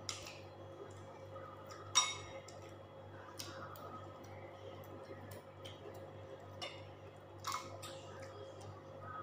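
Mussel shells clicking and clinking as they are pulled apart by hand and knock against a ceramic bowl: one sharp ringing clink about two seconds in, another softer one later, and a few faint ticks between, over a faint steady hum.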